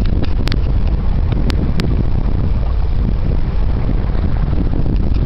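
Wind buffeting the camera microphone: a steady, heavy low rumble, with a few short clicks in the first two seconds.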